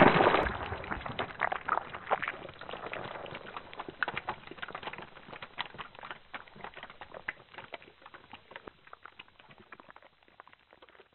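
The tail of a loud rifle-shot blast dies away over the first second or so. Then come scattered ticks and pattering as chunks of ballistic gel and skull-shell fragments land, thinning out toward the end.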